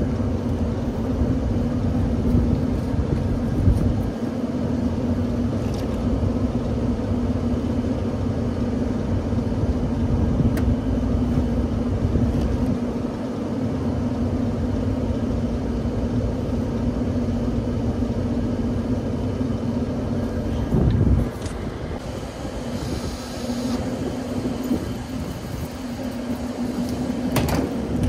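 Steady mechanical hum of rooftop air-conditioning equipment, with a heavy low rumble that drops away about three-quarters of the way through.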